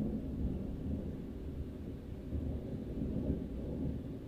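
Thunder rumbling long and low, swelling as it begins and again midway, then easing off near the end.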